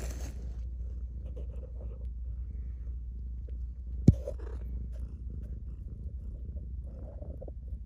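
Calico mother cat purring steadily as her newborn kittens nurse, with one sharp click about four seconds in.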